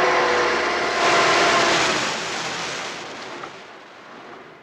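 Motorboat engine running at speed with water rushing along the hull. It is loudest a second or two in, then fades away.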